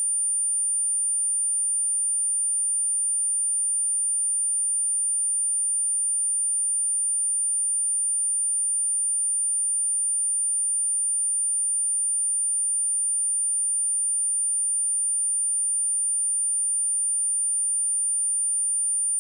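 A steady, pure 9197 Hz sine-wave test tone, held at one constant pitch and level, played to test speakers and shake water and dust out of them.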